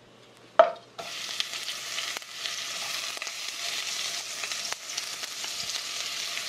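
Meat dropped into a hot wok with a little olive oil starts sizzling about a second in and keeps frying steadily. A sharp clink of chopsticks on the glass bowl comes just before, and a few lighter clicks follow.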